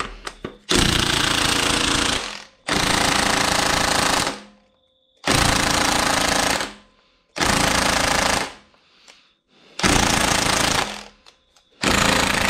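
Cordless impact wrench hammering on a tight 2JZ engine bolt in six bursts of about a second and a half each, with short pauses between them. The bolt does not break loose, and the tool's battery is running low.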